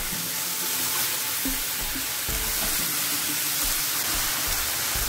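Chopped vegetables sizzling in oil in a nonstick frying pan as a spatula stirs them: a steady frying hiss with soft knocks of the spatula.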